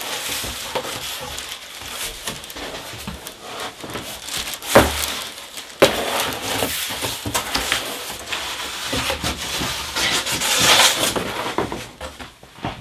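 A large cardboard shipping box being slid and lifted off an office chair wrapped in plastic: cardboard scraping and plastic wrap rustling, with two sharp knocks about five and six seconds in.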